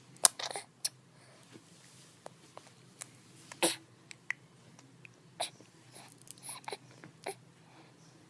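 A person burping over and over: short, separate burps with gaps of up to a couple of seconds between them, the loudest about three and a half seconds in.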